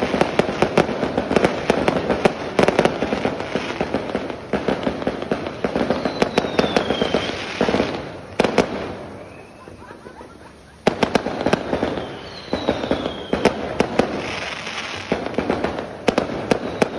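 Fireworks going off: dense, rapid crackling and banging. It thins out to a lull for a couple of seconds about halfway through, then starts up again.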